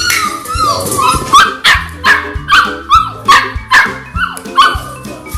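Labrador puppies yipping and whining, a quick run of short falling cries about two a second, with background music underneath.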